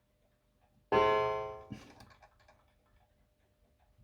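A mantle clock's strike hammer hitting its gong once, about a second in: a clear ringing tone that dies away within a second, followed by a fainter knock. The hammer is being tested after adjustment and, in the restorer's view, still needs bringing down a bit.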